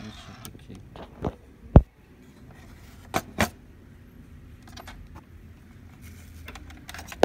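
A few short clicks and knocks from parts being handled on an open laser printer's scanner assembly, over a faint low hum. The loudest is a low thump about two seconds in.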